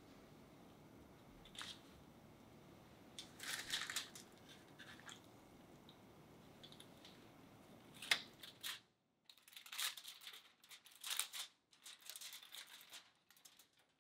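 Aluminium foil crinkling and tearing in short bursts as the foil cover is handled and peeled off a baking dish, with a sharp knock about eight seconds in as the dish is set down.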